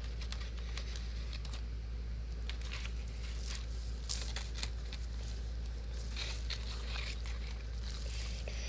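Paper being handled: scattered rustling and crinkling with small clicks, over a steady low hum.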